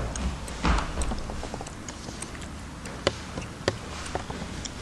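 Two grapplers in cotton gis moving on a padded mat: a couple of soft thuds about a second in, then fabric rustling and scuffing with a few sharp taps or squeaks.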